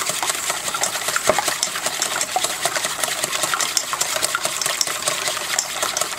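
Wire whisk beating raw eggs in a large mixing bowl, the wires clicking rapidly and steadily against the bowl.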